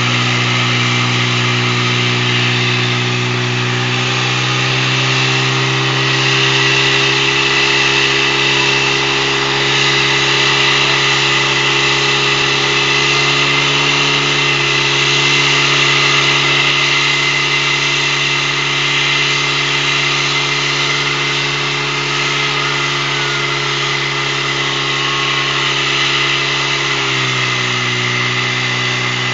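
Portable fire pump engine running hard at a steady high speed as it drives water through the attack hoses. Its pitch rises slightly about four seconds in and drops a little near the end.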